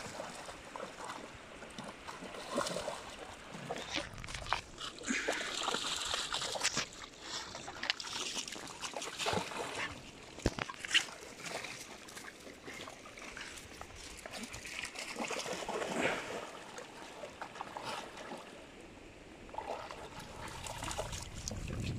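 Pit bulls wading and splashing through a shallow, stony river, with the river trickling over the stones. The splashes come irregularly, with a sharp one about eleven seconds in.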